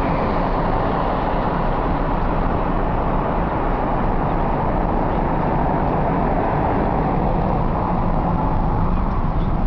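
Steady road noise inside the cabin of a car driving at speed: a constant low rumble with no breaks.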